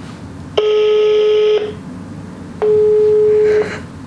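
Telephone ringing tone of an outgoing call to a pizzeria, played through a mobile phone's speaker: a steady beep about a second long, heard twice a second apart, as the call waits to be answered.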